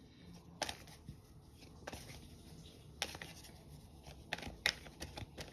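Tarot cards being handled: a few scattered sharp card clicks and snaps, coming closer together near the end as shuffling begins.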